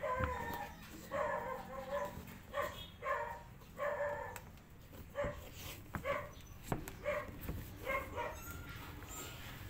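A dog barking repeatedly in short barks, roughly one every half second to second, about a dozen in all. The barks grow shorter and weaker in the second half and stop shortly before the end.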